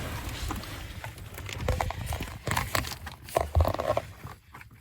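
Irregular clicks, taps and knocks of hands working car wiring and pushing a plug connector into place.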